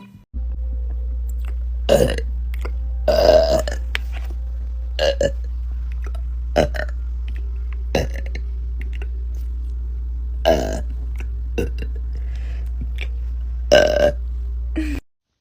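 A woman burping loudly, about eight separate burps a second or two apart, with long, loud ones about 3 and 14 seconds in. Under them runs a steady low hum that cuts off suddenly near the end.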